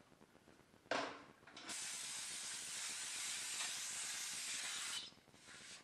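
Aerosol cleaner can spraying onto the transmission pan, with a short burst about a second in and then a steady hiss lasting about three seconds.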